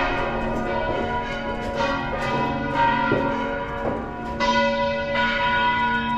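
Basilica church bells ringing a peal: several bells struck one after another at uneven intervals, their hums overlapping and ringing on, with a fresh, stronger stroke about four and a half seconds in.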